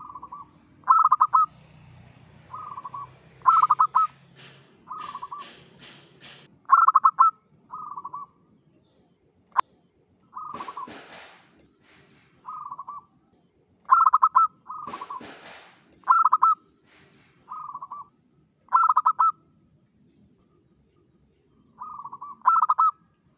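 Zebra dove (Javanese perkutut) cooing: a run of short, staccato phrases about a second apart, with a pause near the end. A few spells of rustling and one sharp click about ten seconds in are heard between the phrases.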